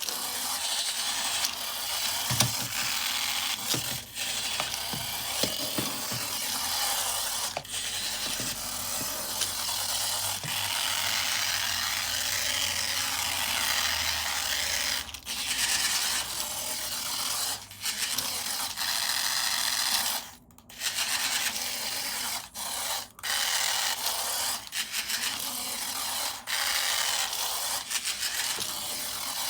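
Small electric motor and plastic gearbox of a battery-powered toy running with a steady whirring rattle, stopping briefly a few times and starting again.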